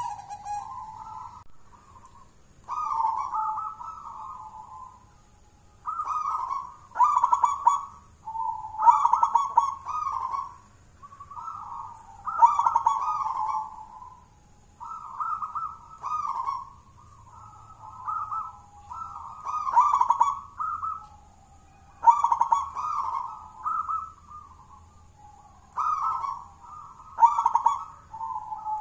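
A local Javanese zebra dove (perkutut) cooing its song, a string of short rolling phrases repeated about every two seconds.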